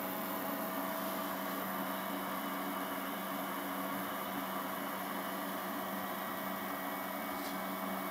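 Steady electrical hum from a 3D-printer extruder and hotend test rig, a few steady tones over a constant hiss.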